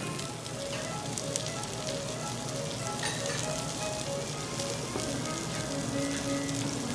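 Lamb, onions and bean sprouts sizzling and crackling on a domed cast-iron Genghis Khan (jingisukan) grill. Soft background music with short held notes plays over it.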